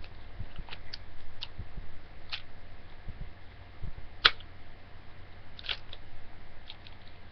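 A single sharp shot from a gas-canister BB pistol about four seconds in, with a few fainter clicks before and after it.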